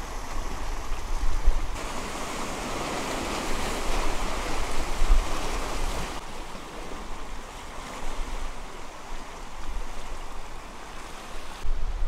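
Sea surf washing and swirling among rocks at the shoreline, a steady rushing wash with gentle swells. Wind now and then rumbles on the microphone.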